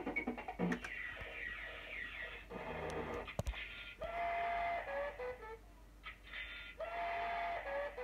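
QPS fruit machine's electronic sound effects while its credits are collected: a quick run of beeping tones and ticks, then twice a held beep that drops away in stepped falling notes.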